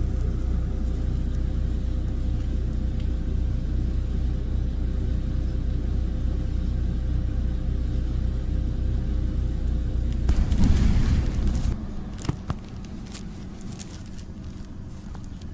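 Steady low hum and rumble inside a tram, with an even, unchanging pitch. About ten seconds in there is a short loud rush of noise. Then the hum falls away and the sound turns quieter and more open, with a few sharp clicks.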